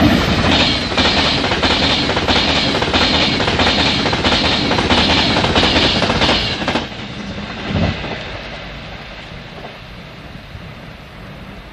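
An express passenger train passing through the station at speed, its wheels clattering in a regular beat over the rail joints. The clatter dies away after about seven seconds as the train goes by.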